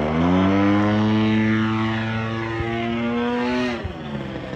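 Single-cylinder two-stroke DLE 61cc gas engine of a large RC aerobatic plane, rising in pitch as the throttle comes up, holding a steady high drone, then dropping in pitch nearly four seconds in.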